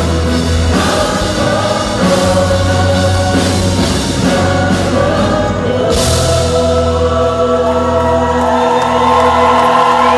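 Gospel choir and pop-rock band performing live, the choir singing held chords over bass, guitar and drums. About six seconds in a cymbal crash rings out and the song settles on a long sustained chord, with the audience starting to cheer near the end.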